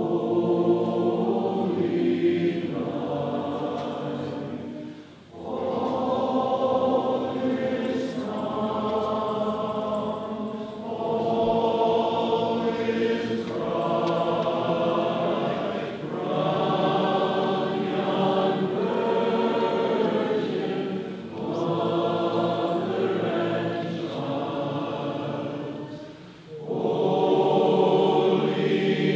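A choir singing in long, held phrases, with brief pauses between phrases.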